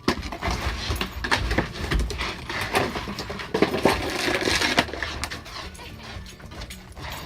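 A dog scrambling about on icy, crusted snow: irregular crunching and scraping.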